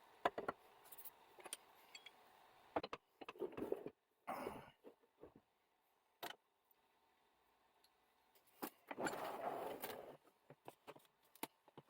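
Faint, scattered clicks and knocks of small objects being handled and set down. About a second of scraping or sliding comes near 4 s and again around 9 s.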